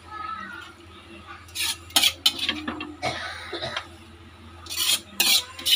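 Utensil clinking and scraping against a serving dish: a few sharp clinks about two seconds in and a few more near the end.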